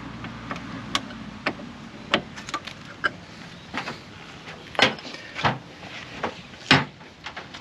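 Hand tools clinking and knocking against metal while working on brake-line fittings: a string of irregular sharp clicks and taps, with two louder knocks near the middle and near the end.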